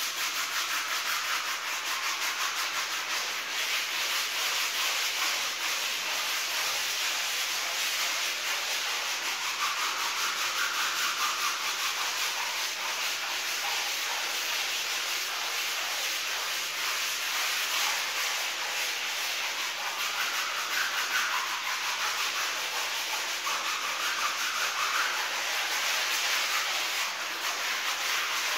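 A small hand scrub brush scrubbed back and forth over a wet, soapy rug, making a steady, continuous scrubbing of quick strokes.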